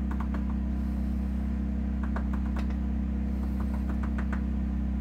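Steady low hum with scattered faint light clicks, the small metal and plastic sounds of shotshell components being handled at a reloading press.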